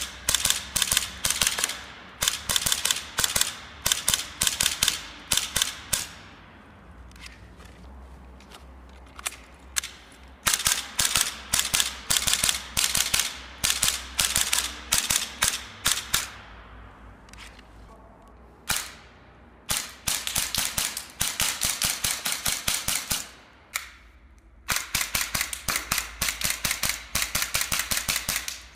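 Electric gel-ball blaster pistol, a Glock G17 replica, firing in rapid strings of sharp snapping shots with short pauses between strings.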